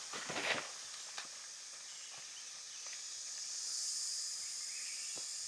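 A few rustling footsteps in dry leaf litter in the first second or so, over a steady high-pitched hiss that grows louder about halfway through.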